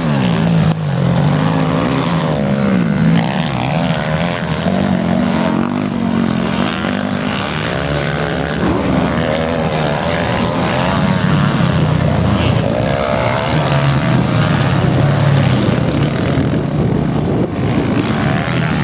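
Dirt bike engines running and revving, their pitch rising and falling steadily throughout.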